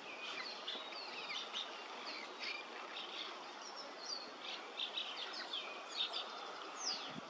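A colony of cliff swallows calling at their mud nests: many short, squeaky chirps, some sliding in pitch, overlapping throughout over a steady background hiss.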